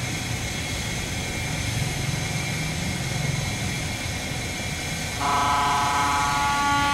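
Barge diesel engine running with a steady low rumble; about five seconds in, a barge horn sounds one long blast over it.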